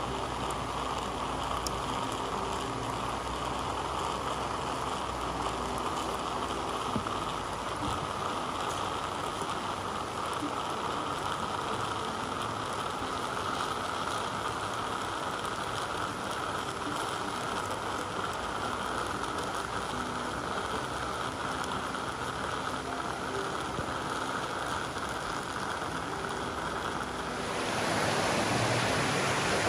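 Stovetop espresso maker on a small wood stove brewing with a steady hiss as coffee pours from its spout into an enamel mug. Near the end this switches abruptly to a louder rushing of a rocky mountain stream.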